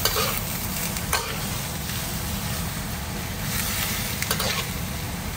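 Diced raw pork belly with chillies and aromatics sizzling in hot oil in a wok as a metal spatula stirs it, clinking and scraping against the pan a few times.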